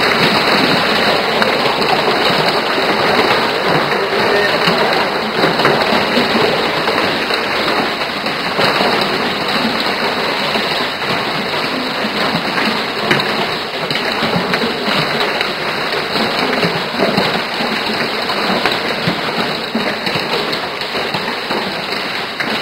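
Heavy hailstorm: hailstones and rain pelting down, a loud steady clatter made of countless small impacts.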